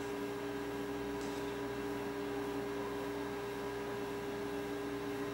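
Steady electrical hum of a couple of constant tones over an even hiss: room tone with no speech.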